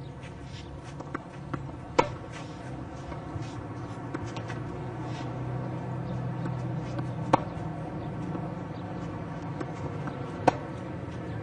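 Tennis ball struck by a racket in a return-of-serve drill: three sharp hits, about two seconds in, about seven seconds in and near the end, with fainter ball taps between them over a low steady hum.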